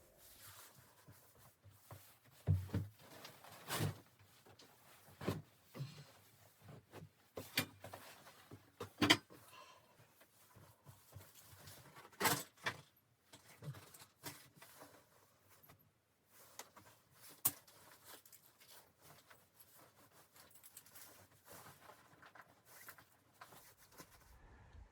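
Scattered knocks, taps and rustles, as of gear being handled, at irregular intervals of a second or two.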